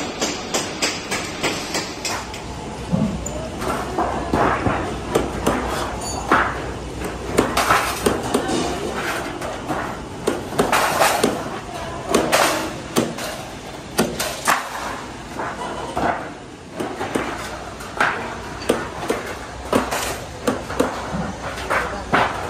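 Thin sheet steel being worked by hand: a string of sharp metal strikes and clanks, roughly one to two a second, with loose sheets rattling.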